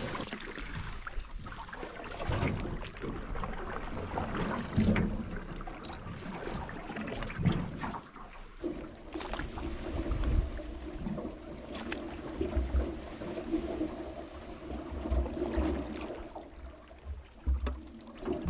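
Paddling an aluminum canoe: irregular paddle strokes in the water with low thumps. A steady low hum joins about halfway through.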